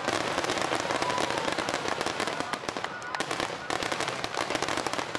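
A dense fireworks barrage: many aerial shells bursting and crackling in rapid succession, with many sharp pops every second, easing slightly about halfway through.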